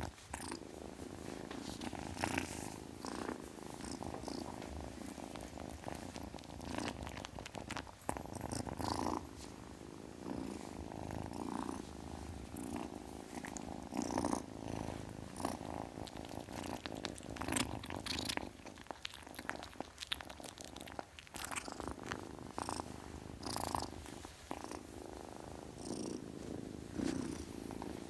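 Kitten purring steadily, with a few brief sharp noises scattered through it.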